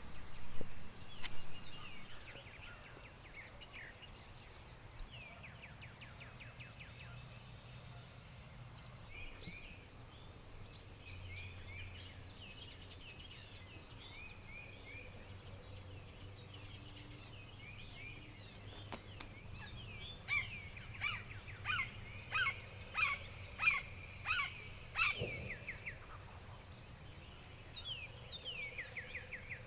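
Woodland songbirds singing and calling: scattered chirps and quick down-slurred notes, then a louder run of repeated song phrases about two-thirds of the way through, over a faint low steady background rumble.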